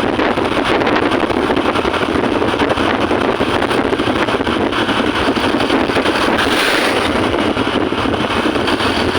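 A bus running, a loud, even noise of engine and road with no horn sounding.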